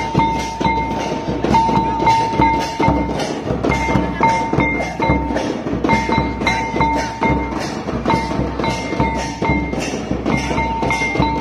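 Folk drumming in a steady rhythmic beat, with a metallic bell-like tone ringing in short repeated stretches along with the strokes.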